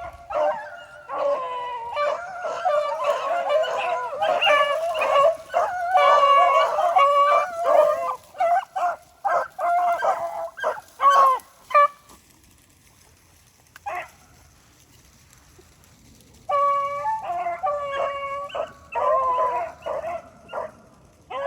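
A pack of rabbit hounds baying together on the chase, several voices overlapping. The chorus breaks off for about four seconds midway, with a single call in the gap, then starts up again.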